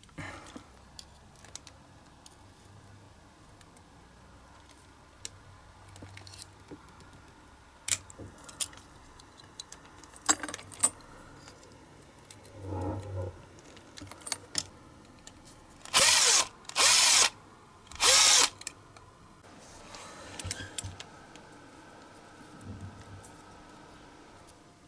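Small metal and plastic parts of a diecast toy car being handled and pried apart: scattered light clicks and knocks. About two-thirds of the way through come three loud bursts of noise, each about half a second long.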